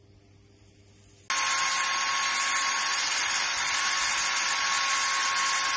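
Wire cup brush on a power drill spinning against a rusty deck-lid standoff bracket clamped in a vice, scrubbing it clean. It starts abruptly about a second in and runs steadily with a constant whine.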